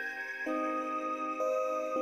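Calm new-age background music of soft sustained notes, the chord changing about half a second in and again near the end.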